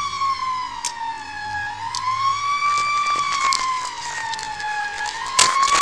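A siren wailing, its pitch slowly rising and falling about every three seconds, with a few sharp knocks near the end.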